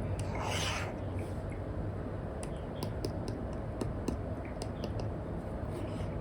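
Apple Pencil Pro tip drawing on a paper-like screen protector over an iPad: a short scratchy stroke about half a second in, then a scatter of sharp taps and ticks as the nib lands and lifts, over a steady low hum.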